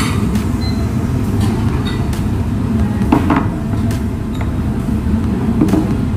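Steady low rumble of restaurant background noise, with a brief louder knock about three seconds in and a fainter one near the end.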